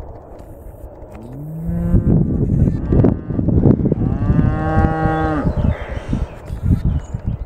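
Scottish Highland cattle mooing twice: a short call rising in pitch about a second in, then a longer, higher call around the middle.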